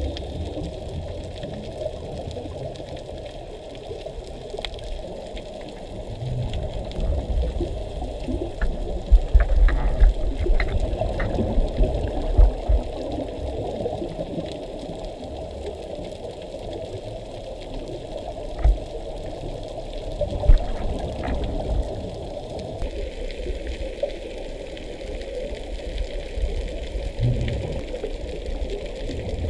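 Underwater sound from a scuba diver's pole-mounted camera: muffled, churning water noise with bubbling, broken by a cluster of short clicks and knocks about a third of the way through and two more knocks a little later.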